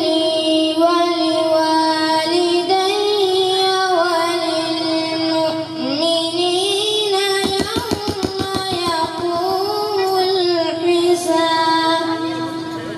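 A boy singing a naat solo, with no instruments, in long held notes that bend and waver. About two-thirds of the way through there is a brief fast pulsing passage.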